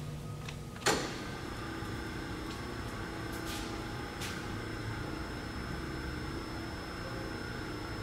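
Mark 1848 hydraulic surface grinder running with a steady mechanical hum. A sharp click of a control-panel switch comes about a second in, followed by a thin, steady high whine, with two fainter clicks a few seconds later.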